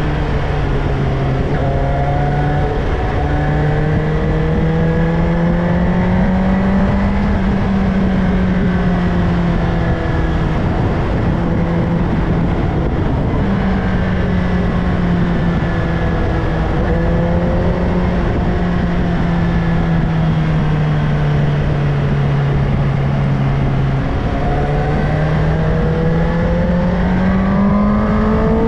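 Suzuki GSX-S750's inline-four engine pulling a motorcycle along at road speed, its note rising and falling with throttle and gear changes and climbing steadily near the end, over a constant rush of wind noise.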